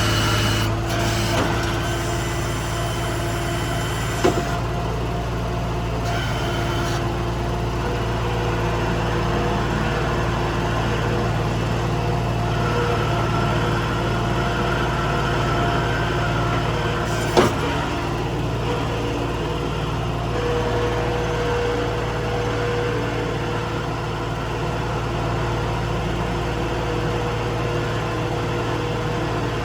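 Skid steer loader engine running steadily, with small shifts in pitch as it works. Two sharp knocks, one about four seconds in and one past the middle.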